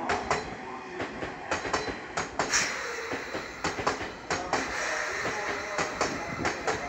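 Train wheels clattering over rail joints and points in an irregular run of sharp clacks, over a steady rolling rumble.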